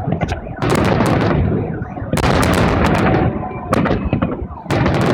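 Fireworks salute: aerial shells bursting in loud bangs with dense crackling. The bangs come in three waves, about a second in, after about two seconds, and near the end.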